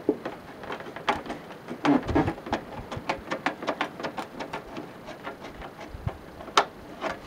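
Tin snips cutting out a downspout hole in a rain gutter: a run of short, crisp snips and clicks, several a second and unevenly spaced, with a few louder snaps.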